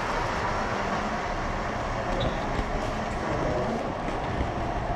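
Miniature garden-railway train running along its track through the plant display, a steady continuous running noise.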